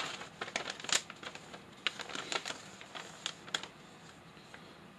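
Paper crinkling and clicking as it is handled: an irregular run of sharp crackles and ticks, busiest for the first three and a half seconds and then thinning out.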